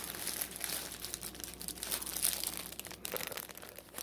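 Clear plastic flag packaging crinkling and rustling as it is handled, a steady run of small crackles that stops near the end.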